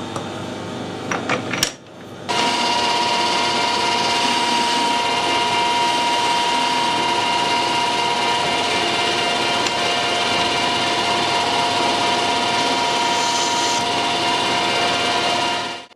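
Metal lathe running, its collet chuck spinning a metal part while the end is faced: a steady machine sound with a constant whine. It starts abruptly about two seconds in, after a few clicks and knocks, and stops suddenly near the end.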